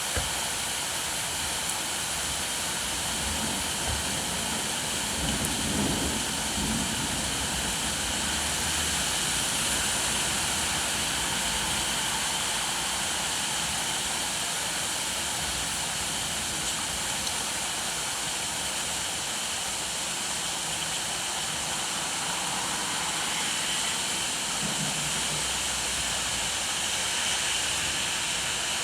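Steady rain falling, an even hiss with no let-up, with a brief low rumble swelling about six seconds in and again near the end.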